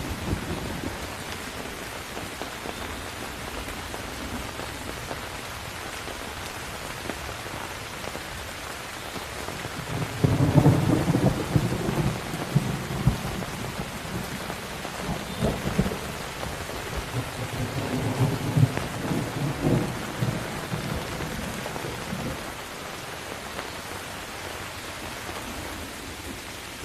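Steady rain falling, with a roll of thunder about ten seconds in that rumbles and crackles for some ten seconds before dying away.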